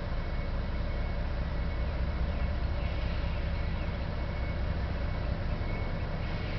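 A steady low engine rumble with an even hiss above it.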